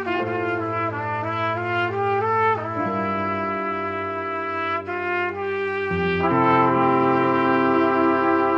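Three trumpets playing in harmony over a backing track: a short rising run of notes, then long held chords that swell louder about six seconds in.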